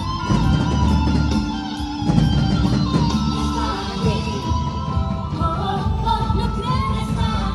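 Christian worship song played by a band, with guitar and a heavy low end, and a voice singing over it.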